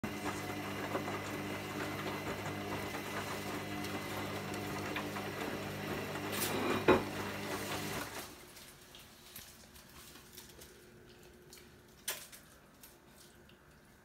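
Hoover front-loading washing machine in the main wash of a cotton 40 °C cycle: a steady motor hum as the drum tumbles the laundry through the water, with one sharp thump about seven seconds in. About eight seconds in the drum stops and it goes much quieter, leaving only a few faint clicks.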